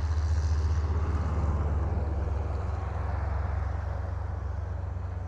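Air seeder's fan running with a steady low hum and a rushing of air, with product blowing out of a leaking hose.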